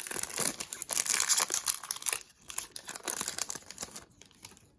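Trading-card pack wrapper being torn open and crinkled: dense crackling for about two seconds, then lighter rustling that fades out.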